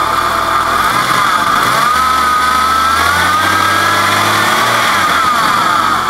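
Jeep Cherokee XJ's 4.0-litre straight-six running, its revs rising about two seconds in, holding for roughly three seconds, then falling back to idle. It runs smoothly, with its loose flexplate bolts retightened and the earlier whirring gone.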